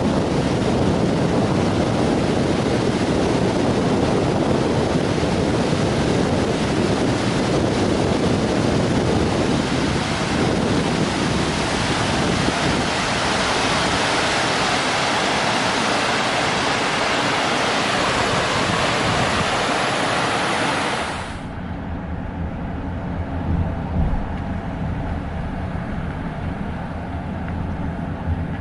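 Loud, steady rushing of wind buffeting the microphone. It cuts off suddenly about 21 seconds in, leaving a quieter low hum with a few faint steady tones.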